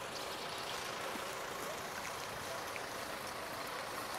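Steady rushing outdoor street ambience with a few faint clicks.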